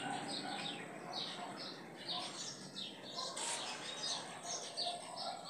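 Small birds chirping: short, high chirps repeating several times a second, over a faint steady background hiss.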